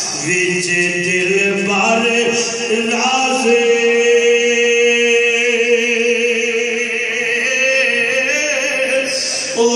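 A man's voice singing a devotional chant over loudspeakers, drawing out long held notes, stepping up to a higher note about three and a half seconds in and holding it with a wavering vibrato.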